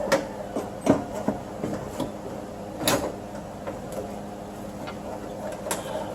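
Window regulator and motor assembly knocking and scraping against the steel inner door shell as it is worked out of the door: irregular clunks and clicks, the loudest about three seconds in, over a steady low hum.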